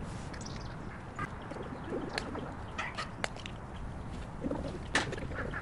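Outdoor ambience in a pine grove, with birds calling over a steady low rumble. Scattered light clicks of chopsticks and tableware come from people eating at a camp table.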